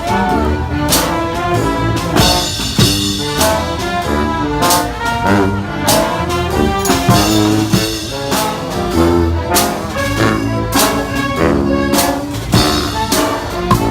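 Brass street band playing live: trumpets and trombones in a busy tune over a marching drum beat, with sharp drum and cymbal hits about every half second.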